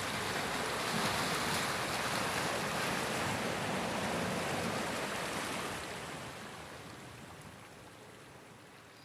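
Sea waves washing against a rocky shore: a steady rushing of surf that fades away over the last three seconds.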